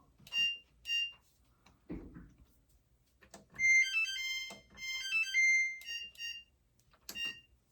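Electronic beeps from a GE dryer's control panel as its buttons are pressed: two short high beeps, then a short stepped chime of several notes, then a few more short beeps, with faint button clicks between. The panel is registering presses now that the control board is reseated.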